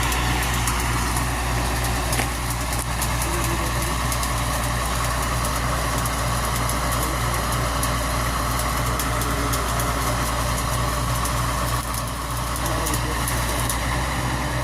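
An engine or motor running steadily at one unchanging speed, with faint scattered clicks over it.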